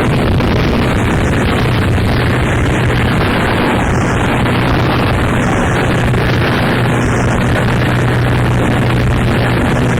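Noise music: a loud, unbroken wall of distorted noise with a steady low drone underneath that settles in about a second and a half in.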